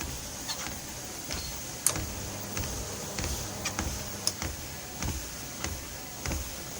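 Treadmill creaking and knocking in a regular rhythm, a sharp click and a low thump a little under twice a second, over a steady high hiss.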